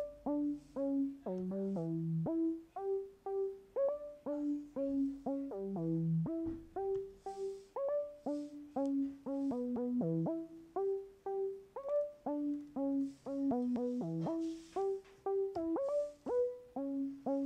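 Synthstrom Deluge groovebox playing a looping sequenced synth pattern: a melody of short pitched notes, two to three a second, each sliding quickly into its pitch, over a lower line of notes.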